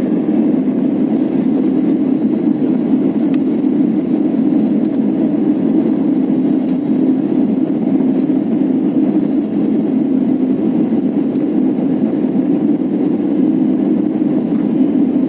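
Jet airliner landing: a loud, steady, deep hum of engine and air noise that holds an even level throughout.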